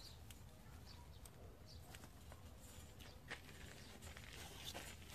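Near silence: faint background with a few soft, brief clicks and faint high chirps scattered through it.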